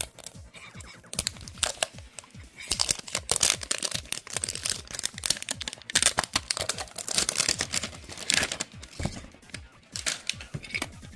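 Plastic and cardboard packaging of a Pokémon card bundle crinkling and tearing as it is unpacked by hand, in irregular rustling bursts with clicks.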